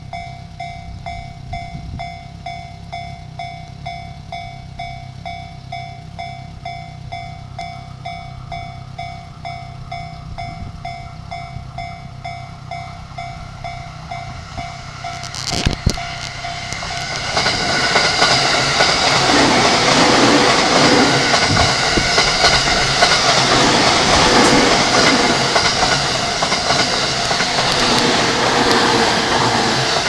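Level-crossing alarm ringing in an even repeating electronic ding, then a JR East E231 series electric commuter train arriving and passing close by, loud, with a rhythmic clatter of its wheels, the alarm still going beneath it. A single sharp crack sounds just before the train arrives, about halfway through.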